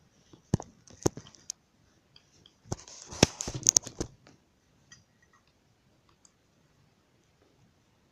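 Plastic clicks and knocks from handling the lower section of a printer fuser unit: three sharp clicks, then a quick flurry of clicks and rustling about three seconds in.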